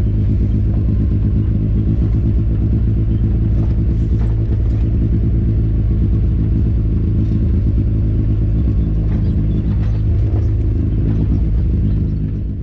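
Off-road vehicle engine running at a steady pace over a bumpy dirt trail, with scattered knocks and rattles from the bumps. The sound fades out at the very end.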